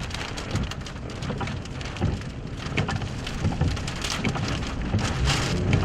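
Heavy rain pelting a vehicle, an uneven patter of drops striking its body and glass during a severe thunderstorm.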